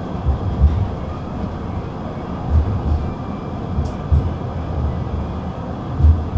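Tram running along the track, heard from inside the car: a steady rumble, with low thumps from the wheels, mostly in pairs, a few times.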